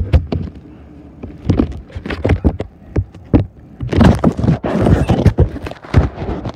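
A run of irregular knocks and thuds, several a second, with a stretch of rustling and scraping about four seconds in.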